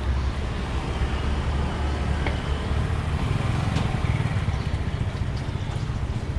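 Steady low rumble of road traffic, with a couple of faint ticks around two and four seconds in.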